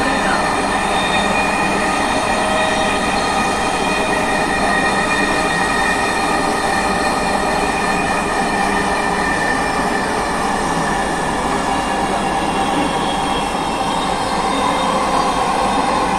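Dhaka Metro Rail train running at speed, heard from inside the carriage: a steady rush of wheel and running noise with a high whine held throughout.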